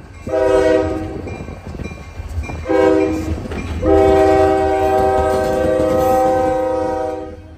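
Diesel freight locomotive's multi-tone air horn sounding a salute, two shorter blasts then a long one of about three and a half seconds. Under it is the low rumble of the passing Marquette Rail locomotives.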